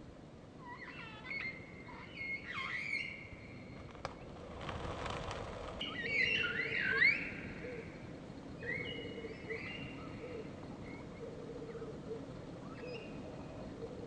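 Meyer's parrots calling in a flock: shrill squawks and short whistles, some sliding up and down in pitch, busiest about seven seconds in. A brief rush of noise lasting about a second comes just before.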